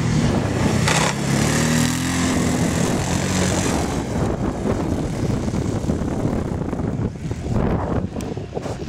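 Racing ATV engines revving, their pitch rising and falling over the first few seconds, then a rougher, noisier running sound.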